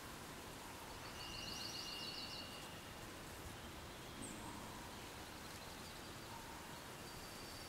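Quiet forest ambience: an even background hiss with a few faint, high bird chirps about a second in and again around four seconds.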